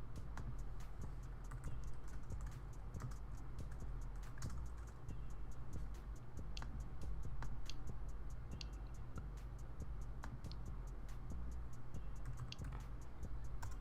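Computer keyboard typing: irregular, quick keystroke clicks over a steady low hum.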